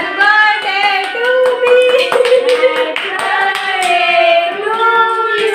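Several voices singing a birthday song together while clapping their hands in time.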